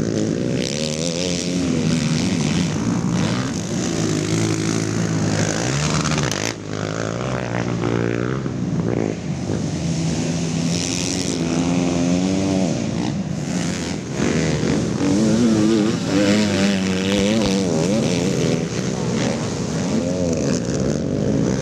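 Race quad engines revving hard on a motocross track, their pitch climbing and dropping again and again as the throttle is opened and shut.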